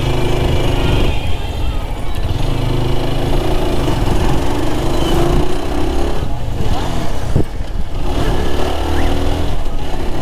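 Lifan KPR 165 single-cylinder motorcycle engine running under way, its pitch shifting with the throttle, heard from the rider's seat. It eases off briefly a little past the middle, then picks up again.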